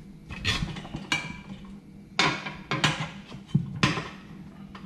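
Metal tire tools clanking against a steel wheel during a hand tire change: about five sharp metallic strikes, each ringing briefly.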